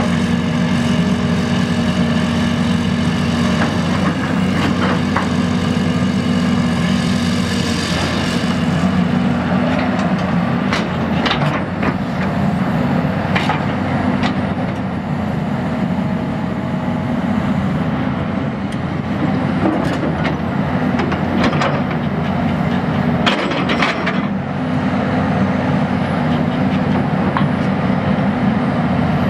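John Deere 370C excavator's six-cylinder turbo diesel running steadily under load as the boom, stick and bucket move, with a steady whine above the engine. Several sharp clanks and knocks come in two bunches in the middle of the stretch.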